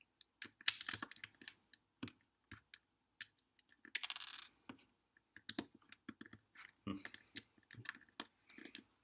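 Small plastic LEGO pieces clicking and clattering as they are handled, picked out of a pile and pressed onto a baseplate: many sharp irregular clicks, with brief rattling shuffles of loose pieces about a second in and again around four seconds in.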